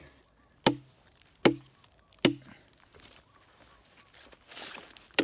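A small Gerber Bear Grylls survival hatchet chopping into a mossy log. Three sharp strikes come about 0.8 seconds apart, then a pause with a brief soft rustle, and another strike right at the end.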